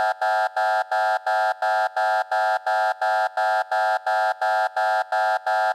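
An alarm buzzer beeping rapidly and evenly, about three harsh beeps a second, all at one steady pitch.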